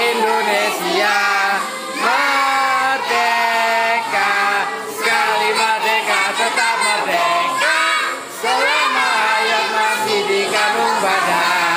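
A group of young children and women singing a patriotic song together loudly, in phrases with short breaths between them.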